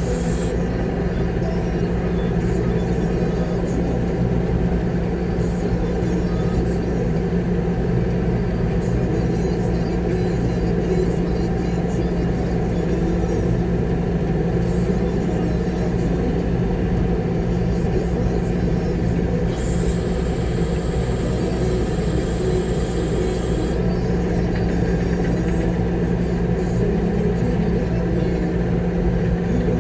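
Concrete mixer truck's diesel engine running steadily, heard from inside the cab, with a hiss lasting a few seconds about two-thirds of the way through.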